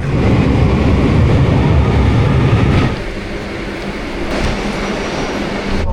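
Train running on rails, loud for about three seconds and then settling to a quieter steady rumble.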